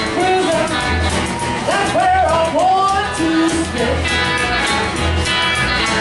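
Live rockabilly band: a woman singing over a regular upright double bass beat, drums and a hollow-body electric guitar. The guitar comes to the fore in the last couple of seconds.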